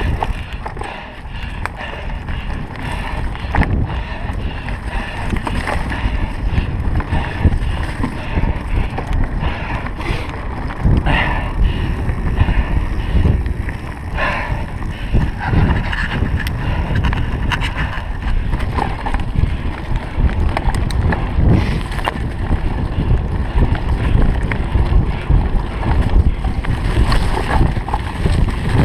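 A 2016 Trek EX9 29 full-suspension mountain bike being ridden along a dirt trail: a steady heavy rumble of wind and tyre noise with the bike's rattle and scattered knocks over rough ground.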